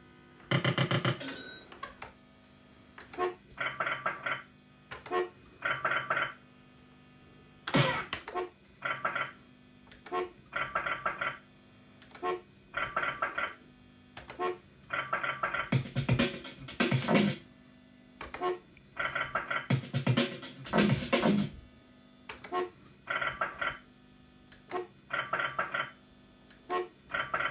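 Road Hog fruit machine playing its electronic sound effects as it is played: short synthesized bleeping phrases repeat about every second, with louder jingles a few times and sharp clicks in between.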